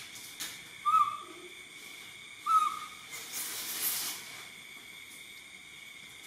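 Baby macaque giving two short cooing calls about a second and a half apart, followed by about a second of soft hiss.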